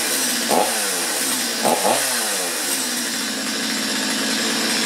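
Stihl two-stroke chainsaw running, its engine briefly blipped up and back down about three times in the first two seconds, then idling steadily.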